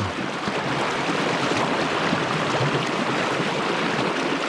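Fast river current rushing steadily, a loud even wash of water with no breaks.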